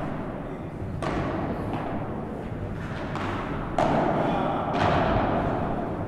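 Padel ball hits echoing in an indoor padel hall: several sharp pops of ball on racket or wall, a couple of seconds apart, each ringing on in the hall's reverberation over a steady hall background.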